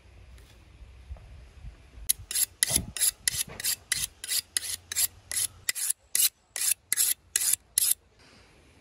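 Steel knife blade being sharpened on a flat file-type sharpening steel: about twenty quick rasping strokes, roughly four a second, starting about two seconds in and stopping just before the end.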